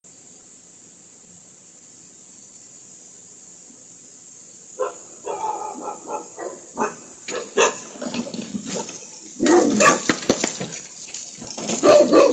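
A dog barking in short, repeated barks, starting about five seconds in and growing louder toward the end.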